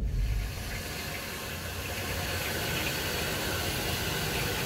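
Steady, even hissing noise that sets in abruptly at the start and holds level.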